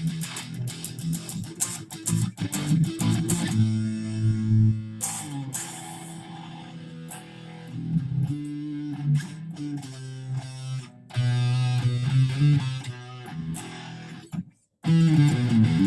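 First Act ME 506 electric guitar played through a distorted tone, tuned to E standard. It plays a riff that opens with fast picking, moves to held notes that change pitch, and breaks off briefly before a loud chord is struck near the end.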